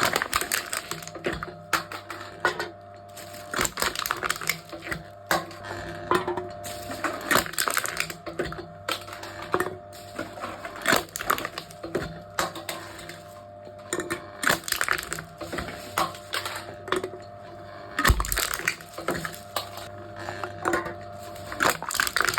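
Aluminium drink cans being crushed by a machine: a run of irregular metallic crunches and sharp cracks, with one heavier thump late on, over a steady low hum.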